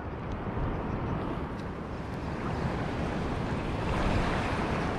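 Sea surf washing against the shore, a steady rush that swells a little about four seconds in, with wind rumbling on the microphone.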